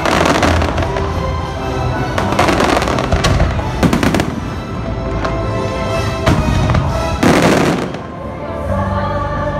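Fireworks bursting and crackling in loud volleys: one at the start, a run at about two to four seconds in, and another at about seven seconds. Show soundtrack music plays underneath throughout.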